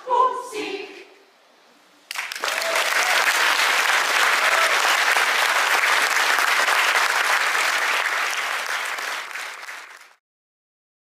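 A mixed choir's last sung notes end about a second in. After a short pause, audience applause starts sharply and runs steadily for about eight seconds, fading slightly before it cuts off.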